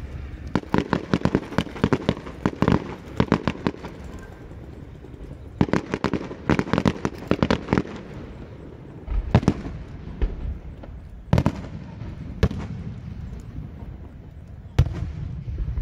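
Fireworks display heard from a distance: two rapid volleys of crackling reports, then about five single deeper bangs of shells bursting, a second or two apart.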